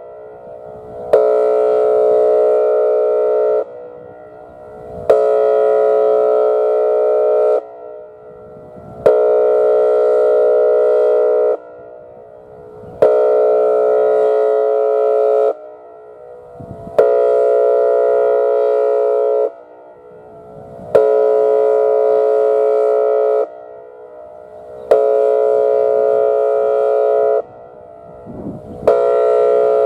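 Whelen 2805 electronic outdoor warning siren sounding its air horn tone during a monthly siren test. It gives a steady, evenly pitched blast about two and a half seconds long, repeated every four seconds, about eight times.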